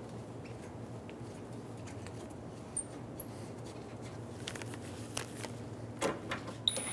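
Faint handling sounds and light clicks as a bolt is hand-threaded into the top of a plastic bumper cover and a socket on an extension is fitted onto it. The clicks gather over the last two seconds or so, over a low steady hum.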